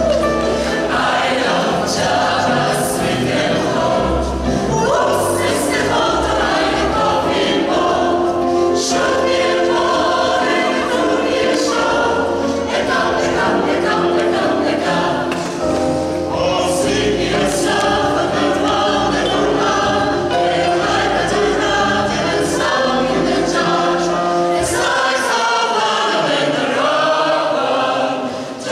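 Mixed choir of women's and men's voices singing together over a steady low bass part, which drops out near the end.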